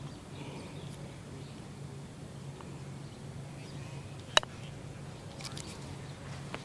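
A putter striking a golf ball: one sharp click about four and a half seconds in, over a faint steady low hum.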